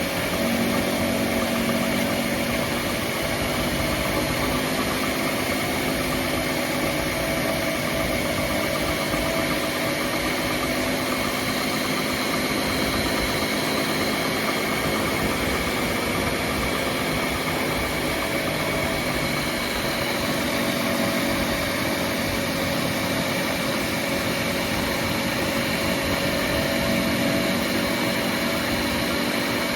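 Worn front hub bearing on a Volkswagen Golf 7 droning while the car is driven: a steady hum made of several tones over road noise, with the pitches drifting slowly. The noise comes from where the drive shaft mounts to the hub.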